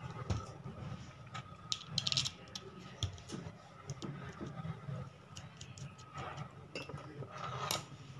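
Light clicks and metal clatter of a small juicer/chopper universal motor being reassembled by hand, its end bracket with a freshly fitted bush going back onto the stator. A brief rattle comes about two seconds in and another near the end.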